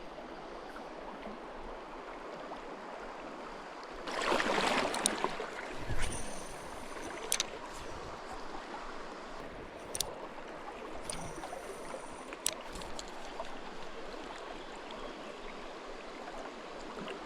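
Shallow river flowing steadily, with a louder rush of water about four seconds in and a few sharp clicks scattered through.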